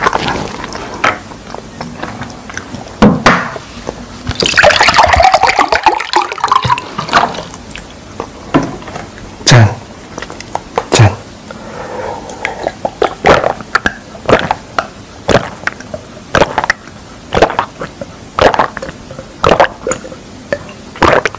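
Water poured from a plastic bottle into a drinking glass, about four to seven seconds in, then a long run of close-miked gulps and swallows, roughly one a second, as the water is drunk.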